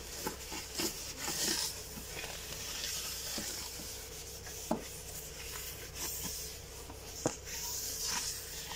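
Tissue being rubbed and wiped over the inside of a pet's cage: a steady scratchy rubbing, with two sharp taps about five and seven seconds in.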